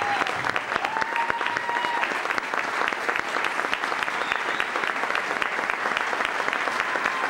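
Large audience applauding steadily, with a couple of brief high calls from the crowd in the first two seconds.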